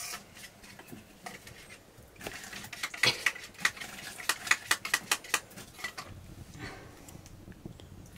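A spoon whisking beaten egg in a small steel bowl, clinking quickly and unevenly against the metal, thickest from about two to five seconds in.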